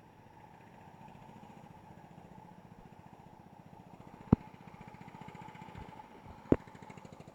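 A cutting machine's engine running steadily with an even pulse. Two sharp clicks come about two seconds apart, the first a little past the middle.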